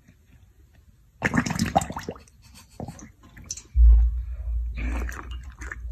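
A large dog lapping and slurping water from a stainless steel bowl in irregular splashy bursts, with a low rumble through the second half.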